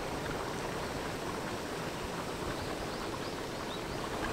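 Volcanic hot-spring steam vent giving off a steady rushing hiss.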